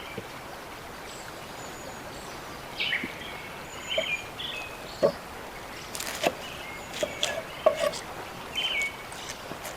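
Small birds chirping in short repeated phrases over a steady outdoor background, with several sharp knocks and clatters in the second half.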